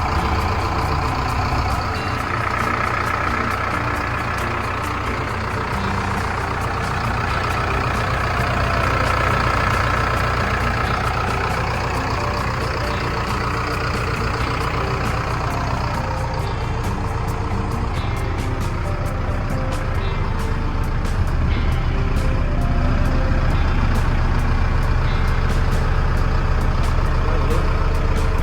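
Diesel engine of a Bull backhoe loader running steadily.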